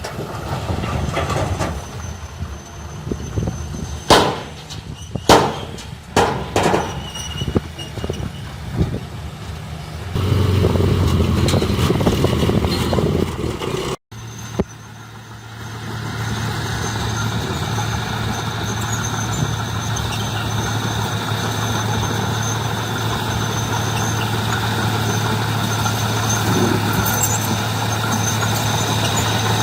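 Heavy earthmoving machinery at work: sharp metal clanks and knocks over a running engine for the first ten seconds or so, then a loud engine. After a sudden cut, a steady engine drone that slowly grows a little louder.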